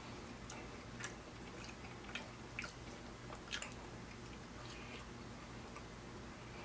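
Close-miked chewing of ribeye steak: irregular short wet mouth clicks and smacks, about seven in the space of a few seconds, over a faint steady low hum.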